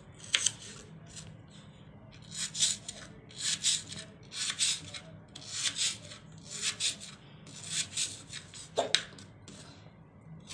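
Small kitchen knife sawing through raw carrot on a wooden chopping board: rasping strokes about once a second, with a couple of sharp clicks where the blade meets the board. The knife is cutting poorly.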